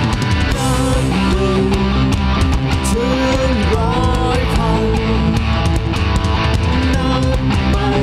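Rock band playing an instrumental passage ahead of the vocals: an electric guitar melody with bent notes over bass and drums.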